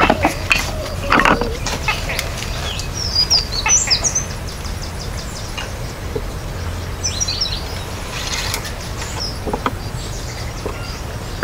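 Wooden sticks and planks knocking as they are set down and fitted, with a small bird chirping in two short runs, about three seconds in and again about seven seconds in.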